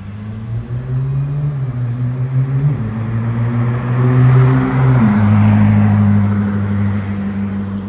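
Koenigsegg Jesko's twin-turbo V8 accelerating away and driving past, its engine note stepping down twice. It is loudest about four to five seconds in.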